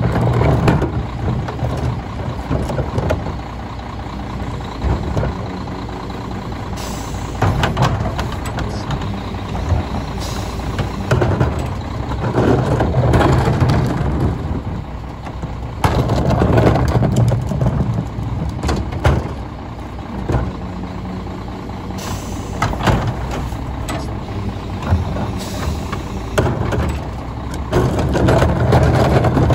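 Volvo WXLL rear-loader garbage truck with a Heil 5000 body idling at the curb, its diesel engine humming steadily, with several louder stretches and a few short hisses of air as yard-waste carts are emptied into the hopper by hand.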